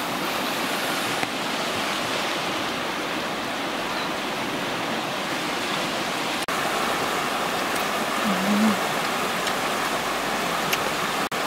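Fast-flowing, muddy river rushing steadily, with a brief low hum about eight seconds in.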